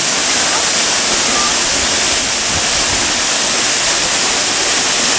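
Minoh Falls, a large waterfall, pouring steadily into its plunge pool: a dense, even rush of falling water.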